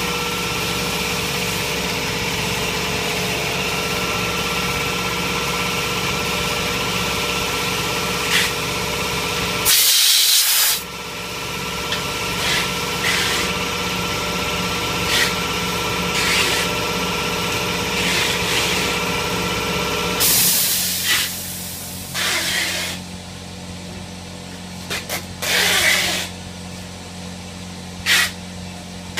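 Faucet test bench running with a steady machine hum and a few fixed tones, broken by sharp hisses. The longest and loudest hiss comes about a third of the way in. After the hum drops to a lower, quieter level about two thirds through, several shorter hisses follow.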